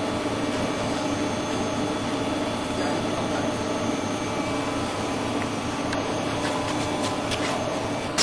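CGB20 automatic core drill grinding machine running with a steady motor hum, with a few faint ticks in the last couple of seconds.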